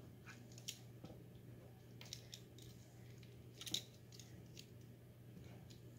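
Kitchen tongs faintly clicking and tapping against a metal baking pan as wet, dyed wool roving is shifted about, with the loudest tap near the middle. A low steady hum runs underneath.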